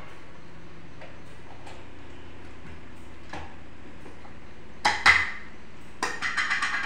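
Kitchen utensils and dishes clinking at the counter: two sharp clinks about five seconds in, then a rapid run of light clinking from about six seconds on, like a spoon working against a small dish. Under it is a steady low hum.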